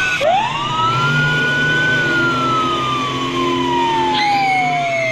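A siren wail: the pitch climbs quickly, holds for a moment, then slides slowly down for about three seconds.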